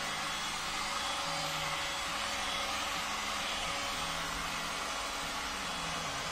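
Handheld electric heat gun blowing steadily, with a faint low hum that comes and goes under the rush of air. It is heating vinyl wrap film to soften it while the film is stretched over a car bumper.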